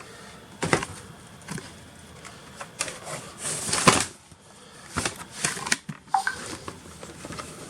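Scattered sharp clicks and knocks of hands handling an open laptop and its memory modules, the loudest about four seconds in.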